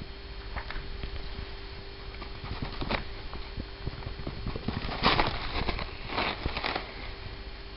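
Paper towels rustling and crinkling as a cat bites and claws at the roll, with denser bursts of rustling about five seconds in and again a second later.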